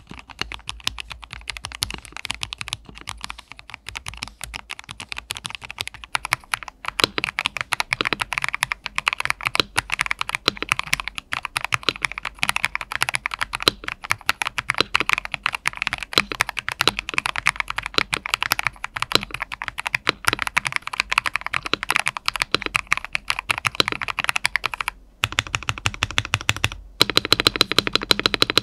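Typing sound test on a modded Vortex Series VX5 Pro mechanical keyboard fitted with PBT CSA-profile keycaps: a dense run of fast keystrokes with a brief pause near the end. The keycaps give a sound profile the reviewer likens to ASA, more 'tok' (thocky) than Cherry or OEM profile.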